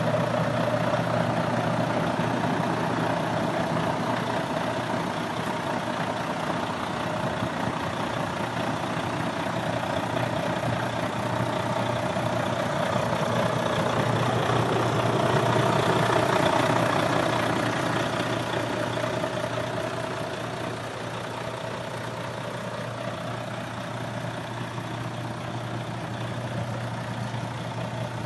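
Volvo FM13 truck's 13-litre inline-six diesel idling steadily, swelling slightly louder about halfway through before easing back.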